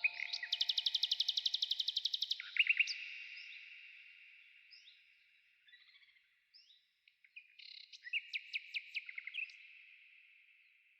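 Small songbirds singing: a fast trill of about ten notes a second starting about half a second in, a few scattered chirps, then a second, shorter trill about eight seconds in, before the birdsong fades out.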